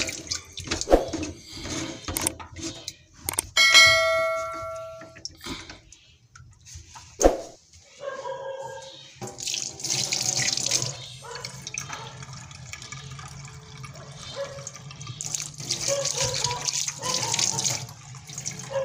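Kitchen tap running into a stainless steel sink and draining, to test a drain that has just been unclogged. Before the water starts there are a few clicks, a short metallic ring about four seconds in, and a sharp knock about seven seconds in.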